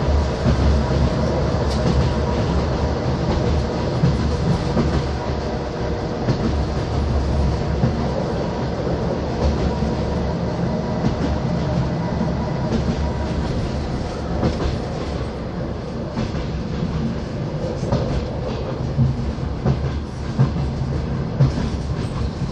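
A moving passenger train's running noise heard from inside a sleeper carriage: a steady low rumble with scattered clacks of the wheels over the rails.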